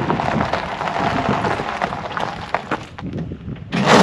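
Electric UTV pulling away on muddy ground, its tyres throwing mud and stones in a dense, irregular crackle and clatter. About three seconds in it briefly drops away, then a louder steady rush of driving noise starts just before the end.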